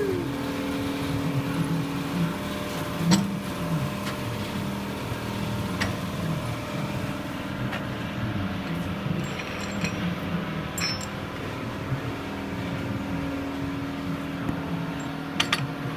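Steady machine hum with a constant low tone, and a few faint, scattered clicks and metal knocks, the loudest a double knock near the end.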